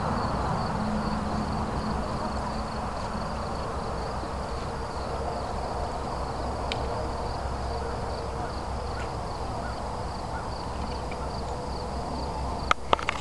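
Steady chirring of insects such as crickets over a low rumble. Just before the end, a few sharp hoof strikes of a horse on wooden boards start.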